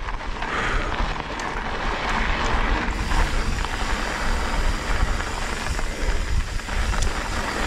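Wind rushing over the microphone with mountain-bike tyres rolling on a dirt trail, a steady low rumble and hiss, while the rider builds speed.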